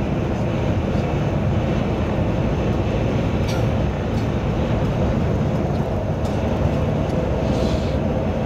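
Steady road and engine noise heard inside a vehicle cruising on an expressway, with two faint clicks partway through.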